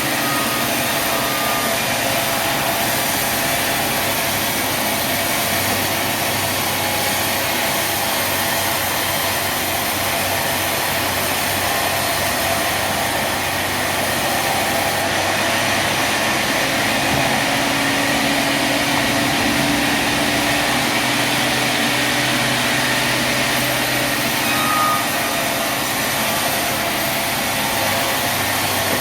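Sawmill machinery running with a steady mechanical drone.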